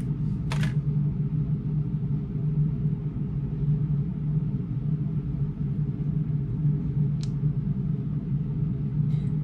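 Steady low rumble and hum of a cruise ship cabin, with a short rustle about half a second in and a faint click after about seven seconds.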